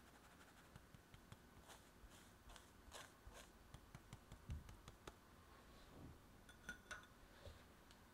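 Stainless mesh sieve shaken and tapped over a stainless steel bowl to sift flour: faint, quick light ticks and scratches, a few soft knocks, and a brief faint metallic clink near the end.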